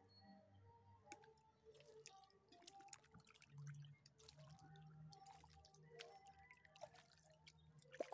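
Near silence, with faint scattered clicks over a weak low hum.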